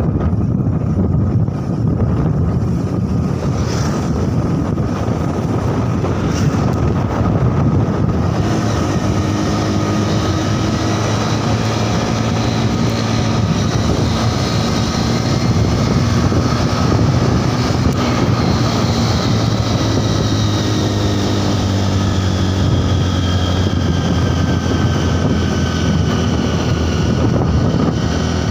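A motorcycle running at road speed, heard from the rider's seat. Steady wind rushes over the microphone, with the engine's hum underneath. The engine's tone comes through more clearly after about eight seconds and drifts a little in pitch.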